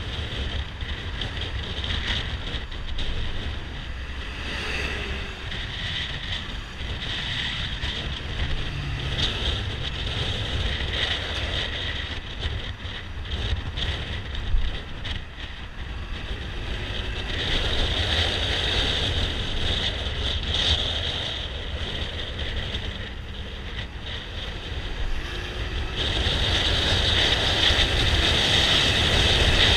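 Wind buffeting the microphone of a camera mounted on a moving scooter, over the steady noise of the scooter's engine and tyres on the road, with traffic passing close by. It grows louder near the end.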